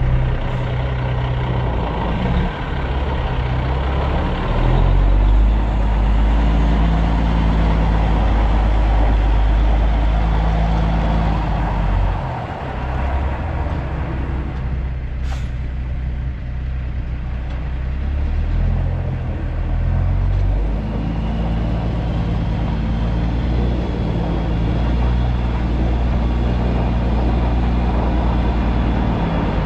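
A Kenworth W900L's Cummins ISX diesel engine running at low revs while the truck manoeuvres and backs up to a trailer. Its note steps up and down several times. A brief sharp sound comes about halfway through.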